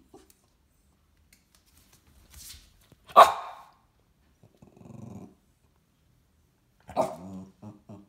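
Small Lhasa apso–poodle mix dog barking: one loud sharp bark about three seconds in, a low growl around five seconds, and another bark near the end that runs into a quick string of short yips.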